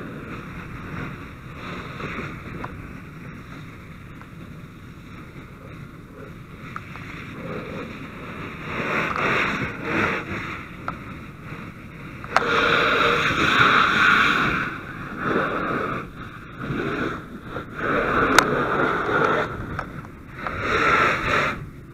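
Fire hose nozzle spraying water onto a burning car. A steady hiss at first, then from about eight seconds in the spray comes in louder bursts of one to two seconds, the loudest starting suddenly about halfway through.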